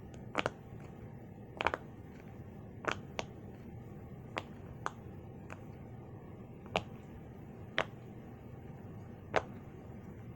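Bubbles on the loud side of a silicone pop-it fidget toy being pressed one after another. Each pops with a sharp click, about a dozen at irregular intervals, some in quick pairs.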